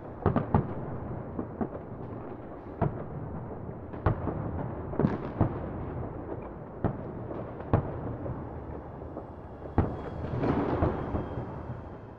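Fireworks going off: a continuous rumble of bursts with sharp, louder bangs every second or two, swelling near the end and then fading out.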